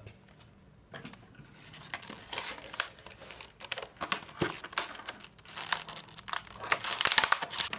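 Stiff plastic packaging crinkling and crackling as it is cut open. The crackles start about a second in, come irregularly, and grow thicker and louder toward the end.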